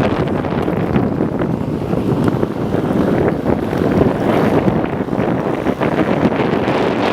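Wind buffeting the microphone of a moving vehicle's F900HD dashcam: a steady rushing noise with constant gusty fluttering.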